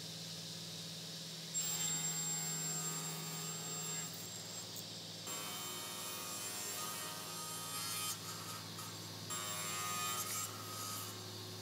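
Sliding-table panel saw running with a steady motor hum, its blade cutting through a wooden board from about a second and a half in, the cutting noise swelling and easing as the wood is pushed through.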